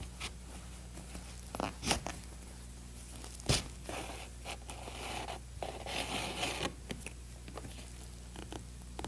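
Upholstery twine being pulled through and tied against leather and burlap: light rustling and scattered clicks, a sharp click a little before the middle, then several rasping pulls of the twine, all over a low steady hum.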